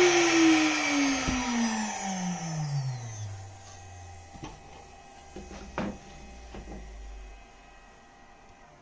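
CNC router spindle winding down after switch-off, its whine falling steadily in pitch over about four seconds and fading. A few light clicks follow near the end.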